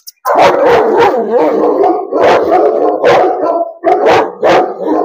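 Pakistani bully kutta barking loudly: an almost unbroken run for the first two seconds, then separate barks about two a second.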